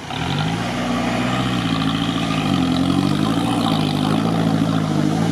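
Toyota Land Cruiser 70's engine running hard under load as it drives through deep water, its revs dipping and rising a few times, with water churning around the truck.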